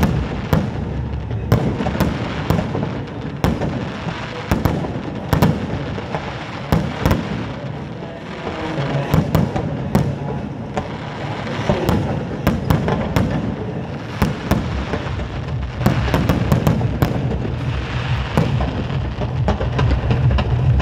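Aerial firework shells bursting in rapid, irregular succession: sharp bangs, some in quick clusters, over a continuous din.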